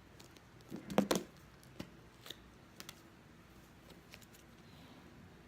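Handling of a container of butter slime: a short cluster of sharp clicks and crackles about a second in, then a few faint ticks.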